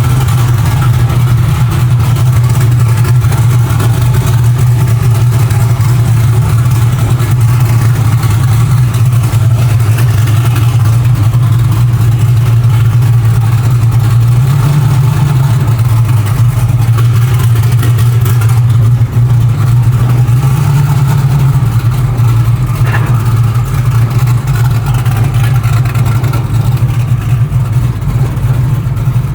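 Chevy Nova race car's engine running loud and steady near idle, picking up slightly a couple of times, about 15 and 21 seconds in. It is on pump gas with a rough tune rather than its methanol tune, and is not running super great.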